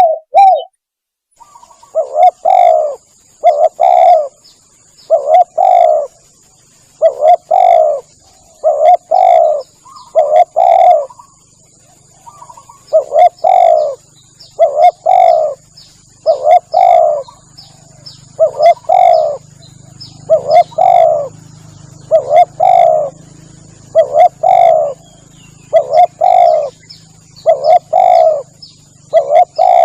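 Spotted dove (tekukur) cooing over and over, a lure call used to draw the birds in: short loud coos come about once a second, often in close pairs. A faint steady high-pitched whine runs underneath.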